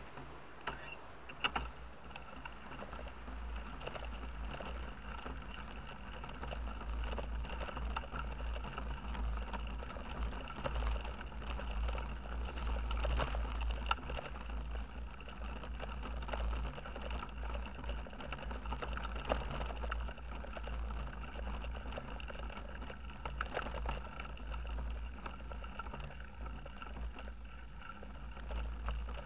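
Mountain bike (a Steppenwolf) rolling along a bumpy dirt forest track: a continuous low rumble with a constant patter of small rattles and clicks from the bike over the rough ground.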